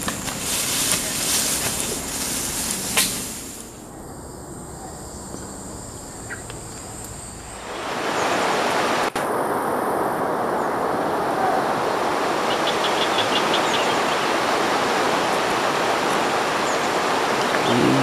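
Footsteps crunching through dry leaf litter, with rustling, for the first few seconds. From about eight seconds in, a steady rushing noise takes over.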